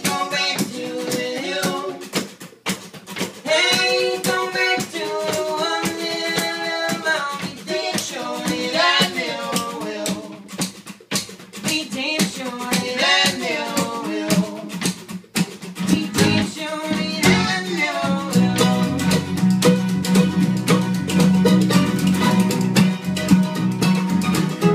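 A small band rehearsing a song on several acoustic guitars and an electric guitar, with a sung vocal line over the strumming. About sixteen seconds in, the lower guitar parts come in stronger and fuller.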